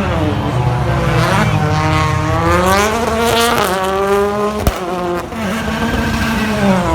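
Several BTCC touring cars racing, their turbocharged four-cylinder engines revving up and down through gear changes, with overlapping engine notes. A single sharp knock comes about two thirds of the way in.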